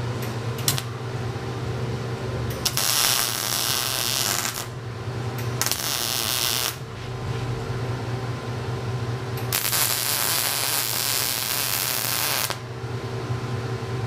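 MIG welder arc crackling as it welds steel square tubing together, in three runs: about two seconds starting three seconds in, a second-long one near six seconds, and a longer one of about three seconds near the ten-second mark. A steady hum runs underneath throughout.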